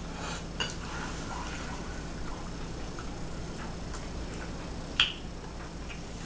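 Quiet chewing of a hot mouthful of soft food, with faint wet mouth clicks and smacks and one sharper click about five seconds in.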